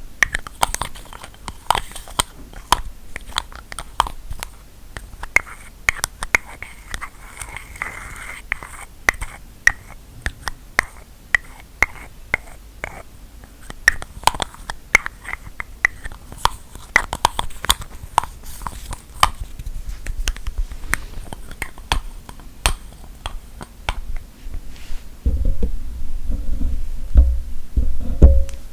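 ASMR tapping and scratching on objects: many sharp taps and clicks at an uneven pace. From about three seconds before the end come louder low thumps and rumbling, as of an object being handled close to the microphone.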